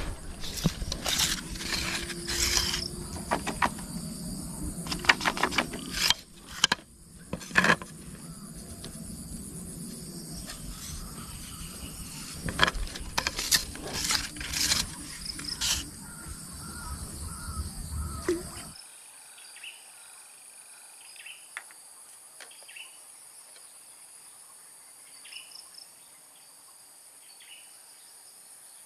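Swamp ambience: a steady high drone of insects with short, repeated chirps. For the first two-thirds, rustling, knocks and clicks of handling and movement lie over it with a low rumble, which cuts off abruptly, leaving only the insects and chirps.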